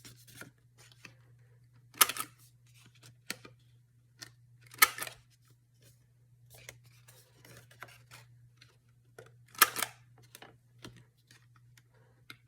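Handheld corner rounder punch snapping through thick paper three times, a few seconds apart, as the corners of a journal tag are rounded, with quieter handling clicks of paper and tool between the punches.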